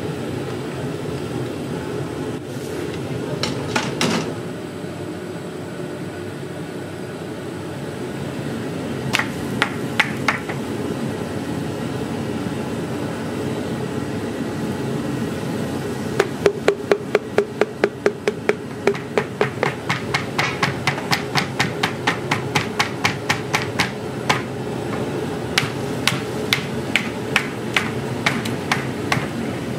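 A cup tapping on a perforated boondi ladle held over a wok of hot oil, knocking chickpea-flour batter through the holes into the oil. A few scattered taps come first, then a long run of about four taps a second, then more scattered taps, all over a steady sizzle of frying oil.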